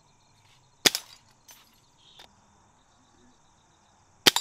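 Two sharp shots from an air rifle about three and a half seconds apart, the first followed by a couple of fainter clicks.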